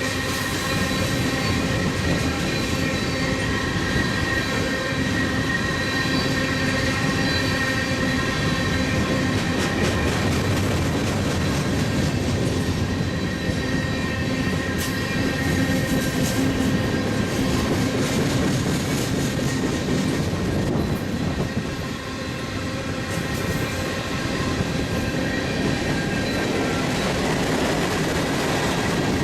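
Freight cars of a mixed freight train rolling past, a steady rumble of steel wheels on rail, with thin high-pitched wheel squeal over the first ten seconds or so that then fades out.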